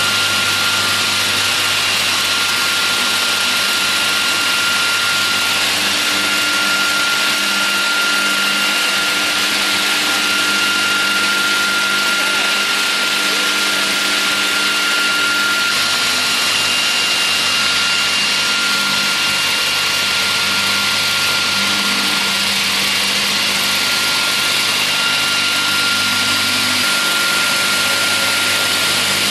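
GP-500VRP slab-processing sawing machine running steadily: a constant mechanical hum of motors and spinning saws with a steady high tone through it.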